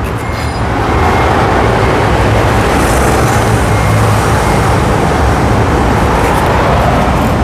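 Steady engine-like rumble with a low hum, running evenly throughout.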